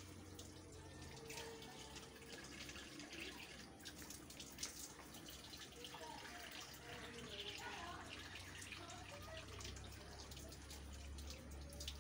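Faint water running from a tap and splashing over hands as they are washed beneath it, with small drips and splashes on the concrete.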